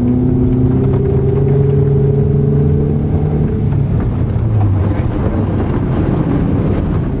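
Car engine pulling steadily and rising slightly in pitch, heard from inside the cabin. About three seconds in, the engine note gives way to a loud rushing of tyre and wind noise.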